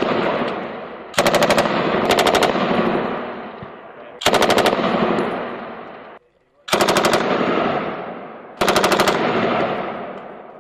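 Belt-fed machine gun firing five short bursts of several rounds each, a second or two apart. Each burst is followed by a long echo that dies away.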